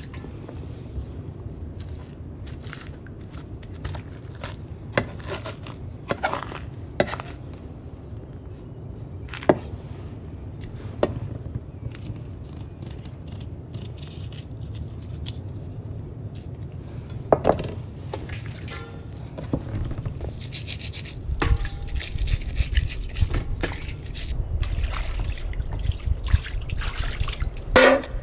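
Filleting a Spanish mackerel on a plastic cutting board: scattered soft taps and scrapes of the knife and of the fish being handled, over a steady low rumble that grows louder about three quarters of the way in, with a sharp knock near the end.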